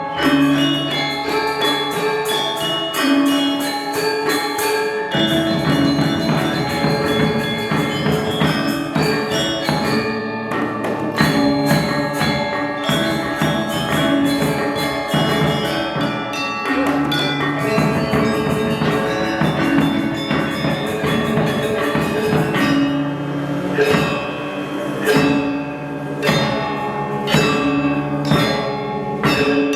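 Balinese gamelan gong ensemble playing: bronze metallophones and gongs struck with mallets in fast, dense interlocking patterns, ringing continuously, with brief lulls about five and ten seconds in.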